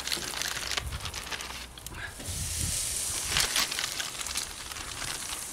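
Plastic zip-lock bags crinkling and rustling as marinated chicken thighs are pulled out by hand, with a sizzle from chicken cooking on the charcoal grill.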